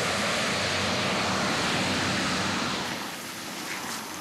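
Light propeller airplane running along a runway at high power: a steady engine and propeller hum under a loud rushing noise. About three seconds in it gives way to quieter outdoor background with a few faint rustles.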